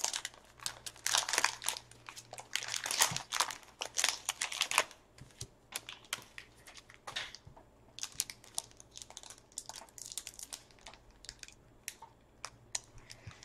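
Trading-card pack wrapper being crinkled and torn open by gloved fingers: irregular crackling and rustling, busiest in the first five seconds, then sparser.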